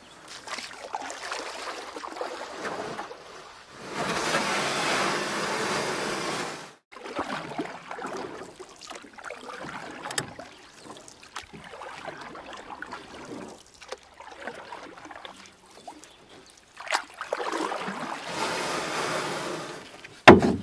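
Kayak paddle strokes: water splashing and running off the paddle blade, loudest in two spells of about three seconds each, with a sharp knock just before the end.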